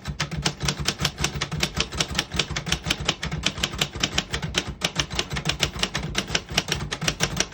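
1967 Royal Aristocrat manual portable typewriter being typed on quickly, its typebars striking the platen in a fast steady run of sharp clacks, about eight keystrokes a second.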